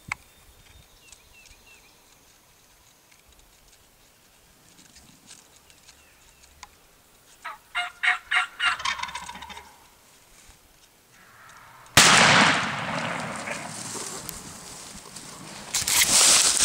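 A wild turkey gobbler gobbles about halfway through, a rapid rattling call lasting about two seconds. A few seconds later a single very loud shotgun shot, the loudest sound, dies away. Near the end comes loud rustling of dry grass close to the microphone.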